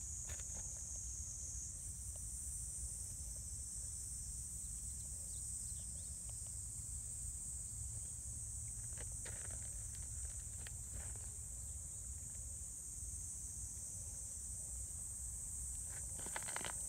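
Steady high-pitched chorus of insects, with a low rumble underneath and a few soft taps and rustles.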